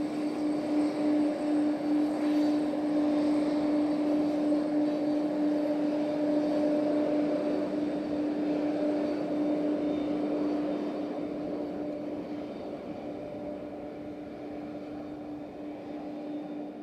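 Boeing 767's jet engines at taxi idle as the airliner rolls past: a steady hum over a rushing noise, fading over the last several seconds.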